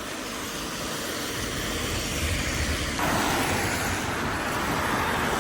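Road traffic passing on a wet road: a steady rush of tyre noise that swells, growing louder and hissier about three seconds in as a vehicle passes close.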